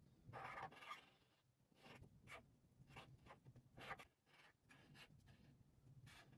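Marker pen tip drawing on paper: quiet, irregular scratchy strokes as lines are inked, the longest about half a second in.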